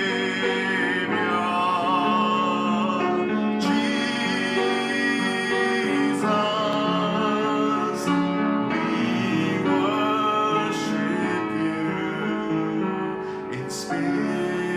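Worship song: a singer over sustained instrumental accompaniment.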